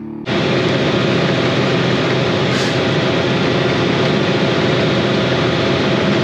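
Dump truck cab interior while driving: steady engine and road noise that starts abruptly about a quarter second in.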